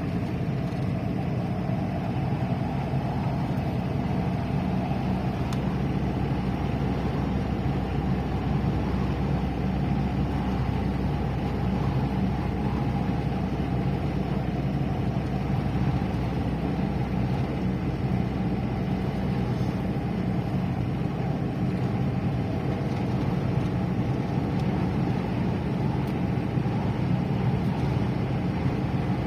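Steady engine hum and road rumble inside a moving car.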